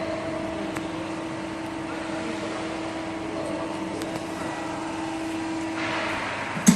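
Hydraulic press brake running with a steady machine hum that stops about six seconds in, followed by a single sharp clunk near the end.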